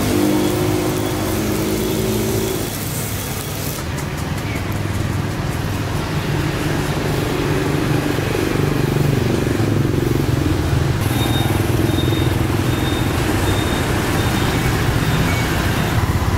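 Street traffic: motorbike engines running and passing, rising and falling in pitch over a steady low rumble.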